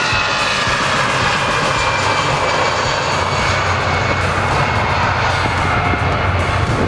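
Jet engines of an easyJet Airbus A320-family twinjet at high power as it speeds along the runway close by. A steady loud rush carries high whining tones that drop slightly in pitch as it passes.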